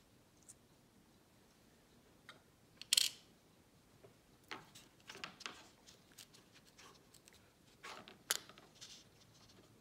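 Small plastic-and-metal lens filters clicking and scraping as they are pulled off the Osmo Pocket's lens housing and set into and taken from their fitted storage case. The sharpest click comes about three seconds in, with several lighter clicks after it and another cluster near the end.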